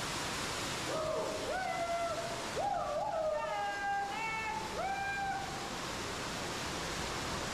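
Steady rush of an underground waterfall. Between about one and five seconds in, a person's voice calls out over it in several long calls, each rising and then held.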